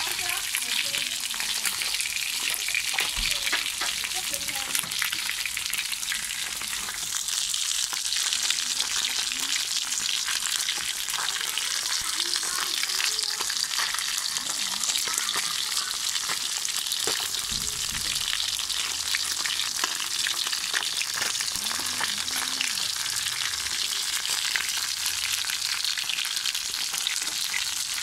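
Red tilapia frying in hot oil in a pan: a steady sizzle with many small crackling pops.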